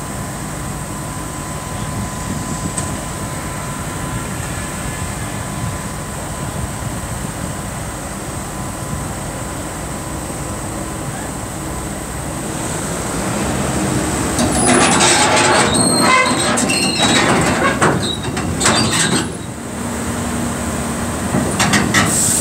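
Caterpillar 320D excavator's diesel engine running steadily as the machine moves onto a lowbed trailer. From about 15 to 19 seconds in, and briefly again near the end, its steel tracks clank and squeal loudly against the steel trailer deck.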